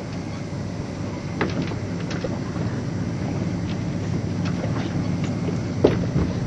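Boat engine running steadily with wind and water noise, and a few scattered clicks and knocks, the sharpest one near the end.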